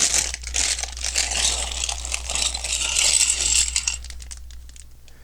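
Plastic bag of Lego pieces crinkling and rustling as it is handled, dying away after about four seconds.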